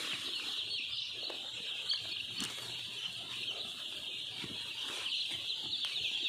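A large flock of three-day-old chicks peeping all together: a dense, continuous chorus of many short, high, falling peeps overlapping one another.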